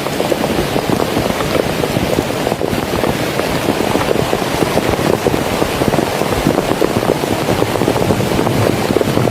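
Heavy rain falling steadily: a dense, even rush of countless close drop impacts.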